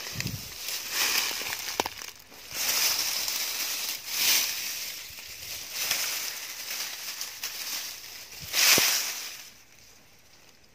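Dry grass stems and fallen leaves rustling and crackling as a hand pushes through and parts them, in several swells with a few snaps, the loudest just before the end.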